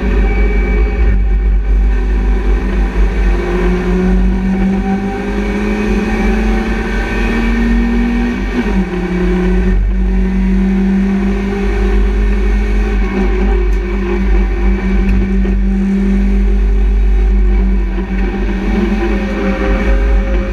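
BMW Compact race car's engine heard from inside the stripped cabin, pulling hard on track: its pitch climbs for several seconds, falls sharply about eight and a half seconds in at a gear change, then holds fairly steady under load.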